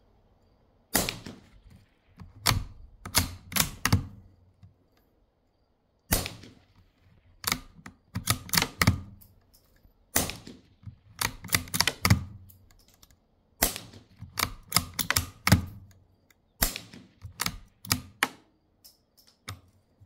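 Savage MKII FV-SR .22 LR bolt-action rifle firing through a Primary Weapons System BDS-22 rimfire suppressor: a string of muffled shots, roughly every three to four seconds, each followed by a quick run of sharp metallic clicks as the bolt is worked.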